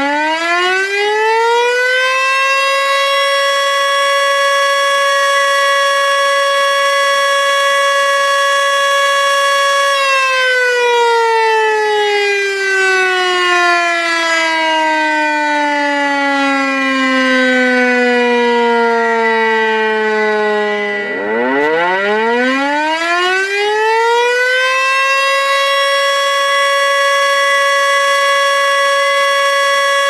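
Tornado warning siren wailing: it finishes winding up to a steady high pitch in the first couple of seconds and holds it for several seconds. Then it winds slowly down over about ten seconds, winds back up and holds steady again to the end.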